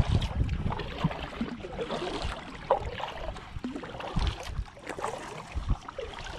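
Kayak paddle strokes: the blades of a double-bladed paddle dipping and pulling through lake water, with splashing and dripping.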